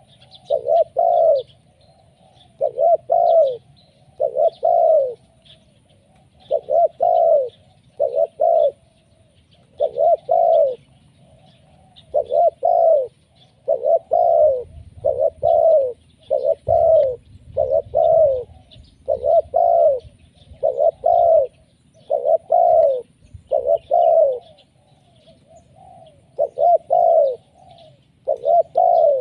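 Spotted dove calling persistently: phrases of two or three coos, repeated about every two seconds. Faint high chirps of small birds are also heard.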